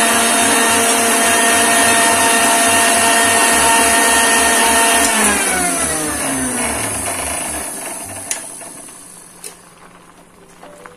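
Electric mixer grinder (mixie) running at steady speed, grinding a coconut, green chilli and mustard paste. About five seconds in it is switched off and the motor winds down, its pitch falling until it stops a few seconds later. Near the end come a few light clinks from a steel spoon against the pan.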